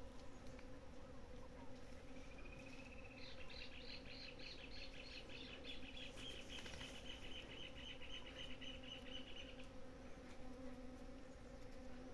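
Many bees buzzing as they forage at blossoms, a faint steady hum. From about two seconds in, a bird calls a long run of short, evenly repeated notes, about three a second, which stops near ten seconds in.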